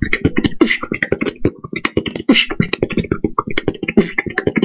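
Female beatboxer's new-school freestyle: a fast, dense run of mouth-made kicks, snares and hi-hats over a low throat bass.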